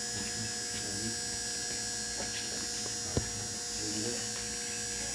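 Steady electrical hum on the audio feed, with one sharp knock about three seconds in. The performers put the background noise down to the sound being hooked up through the Edisto electric supply.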